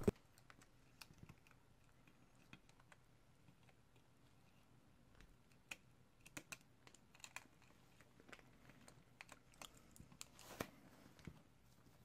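Faint, scattered small clicks and taps of tablet parts being handled as a motherboard is fitted into the screen frame, coming more often in the second half.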